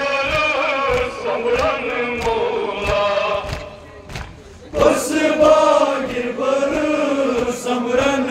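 Men chanting a Kashmiri noha, a Muharram mourning lament, in unison, with regular chest-beating slaps about twice a second. The chanting drops away briefly around the middle and comes back loudly.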